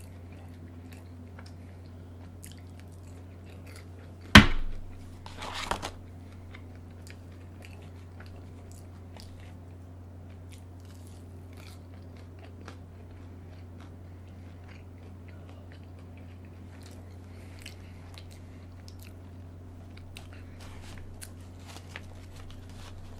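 Close-miked chewing and biting of fast food, with small wet mouth clicks, over a steady low hum. About four seconds in comes one sharp, loud knock, followed by a short rustle.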